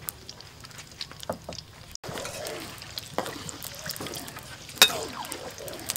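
Sliced garlic and shallots frying gently in oil in a wok, with a metal ladle stirring and clicking against the pan; one sharper clink about five seconds in.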